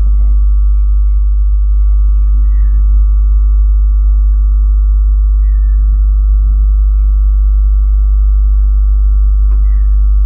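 A loud, steady drone of held tones, strongest in the deep bass, with a few higher steady notes above it.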